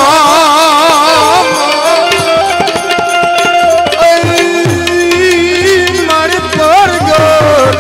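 Harmonium and tabla playing devotional bhajan accompaniment. A held, wavering sung note opens it. The harmonium then sustains steady chords, and from about halfway the tabla comes to the fore with quick strokes and bass-drum pitch bends.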